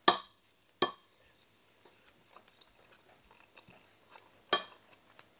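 Wooden spoons clacking against a dinner plate three times, each a sharp knock with a brief ring: right at the start, just under a second in, and about four and a half seconds in. Between the knocks, quiet chewing and small mouth clicks close to the microphone.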